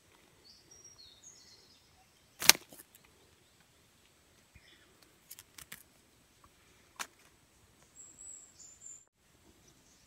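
Faint short, high-pitched bird chirps, broken by a sharp click about two and a half seconds in and a few softer clicks later.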